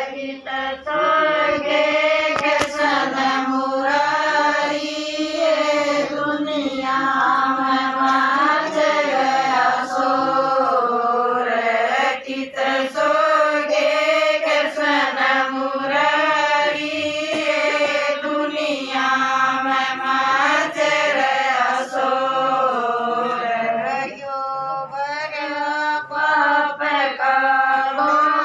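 Women singing a Haryanvi devotional bhajan to Krishna in a chant-like melody, long wavering phrases rising and falling with brief breaks between lines.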